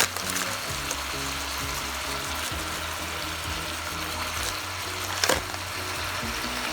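Chicken pieces frying in a pan with a steady sizzle, with a sharp knock right at the start and another about five seconds in; background music plays underneath.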